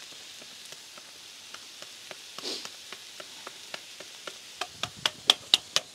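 Cauliflower florets and bacon sizzling on a Blackstone flat-top griddle, a steady faint frying hiss. Near the end comes a quick run of sharp taps, about four a second, growing louder.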